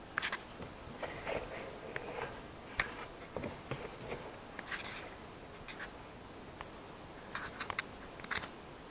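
Faint scattered clicks, rustles and short scrapes of hands handling wiring inside a car, as the reverse camera's video cable is pulled through and connected.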